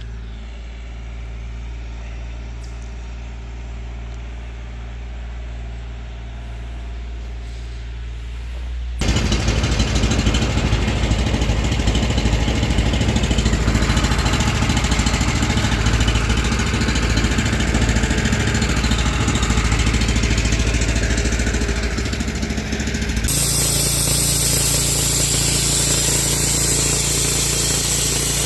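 An engine running at a steady idle, then much louder and rougher from about nine seconds in, with an abrupt change again near the end.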